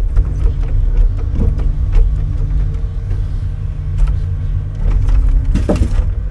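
Timber crane at work, loading logs: a steady engine-and-hydraulic hum runs under occasional knocks of wood and metal. A louder clatter comes near the end.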